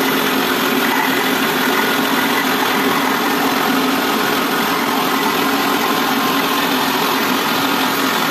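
Small rice milling machine running steadily: a steady motor hum under an even rushing of paddy and milled rice pouring through it.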